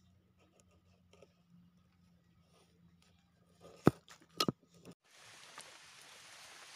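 Handling noise: a few sharp clicks and taps about four seconds in, against a faint low hum. At about five seconds the sound cuts to a steady hiss.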